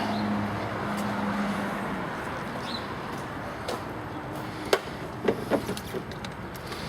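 Several sharp clicks and knocks of hands and tools working under a car's hood, over steady background noise. A low hum fades out about two seconds in.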